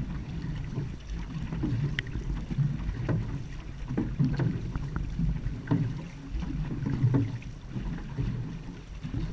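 Paddles of an outrigger canoe (va'a) stroking the water in a steady rhythm, about one stroke every second and a half, with water rushing and splashing along the hull. Wind rumbles on the microphone underneath.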